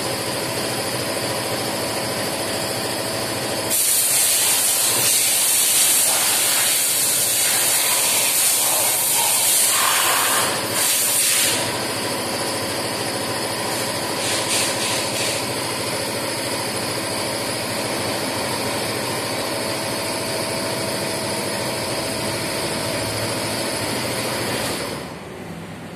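Electrical tape being pulled off the roll and wound around a wire joint: a loud rasping hiss for about eight seconds, starting a few seconds in. A steady workshop hum sits underneath and drops away near the end.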